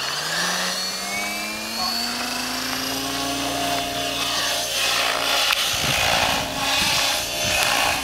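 Radio-controlled JR E12 model helicopter spooling up: its whine rises in pitch over the first three or four seconds, then holds steady at head speed. A low rumble joins in about six seconds in.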